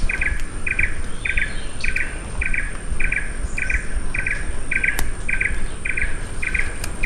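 An animal call of short buzzy chirps repeating evenly, a little under two a second, over a low rumble.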